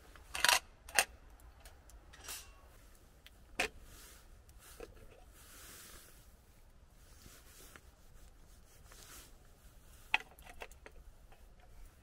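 A few sharp clinks and knocks of small hard objects being handled, the two loudest about half a second apart near the start, another about three and a half seconds in and a last sharp one near the end.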